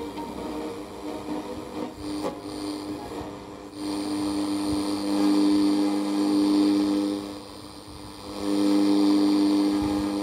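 Radio receiver built on a Sony CXA1619 chip, heard through its speaker while being tuned across the medium-wave band: a steady low droning tone with hiss, louder from about four seconds in, dipping briefly near eight seconds and rising again.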